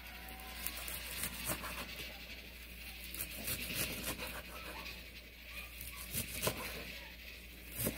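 A cleaver slicing through a bunch of wild chives (dallae) on a wooden cutting board: irregular crisp cuts through the stalks and knocks of the blade on the board.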